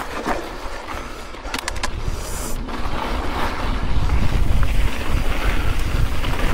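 Mountain bike riding down a dirt desert trail: wind buffeting the camera microphone and tyres rumbling over the ground, growing louder from about halfway as the bike picks up speed. About a second and a half in there are a few sharp clicks and a brief hiss.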